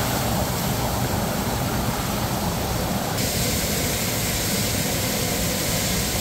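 Steady rushing of water from a pool's wall spout and churning jets, changing in character about three seconds in.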